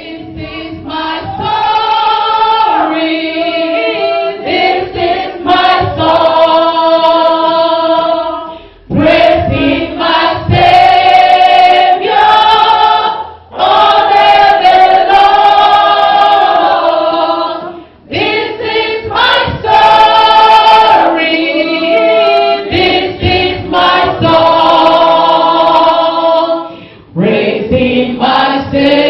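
A gospel worship song sung by women's voices, with a lead singer on a microphone and others singing along. The song comes in long held phrases broken by short pauses.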